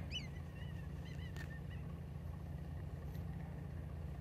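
A steady low drone, with a few short high chirping calls in the first second and a half and a single sharp click just after.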